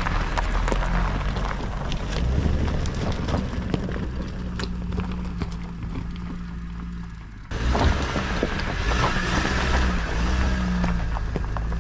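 Suzuki Grand Vitara 4WD driving slowly over a rocky gravel track: a steady low engine hum with many small clicks and crunches of stones under the tyres. Past the middle the sound cuts abruptly to a closer, louder take with more crunching.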